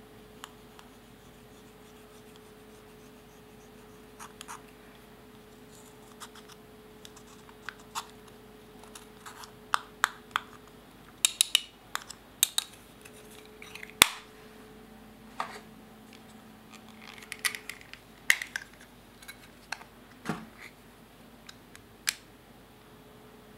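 Irregular scratching, scraping and small clicks as a metal tool and a plastic spatula pry pressed eyeshadow out of plastic compacts, with taps of the plastic cases. The sharpest click comes about fourteen seconds in.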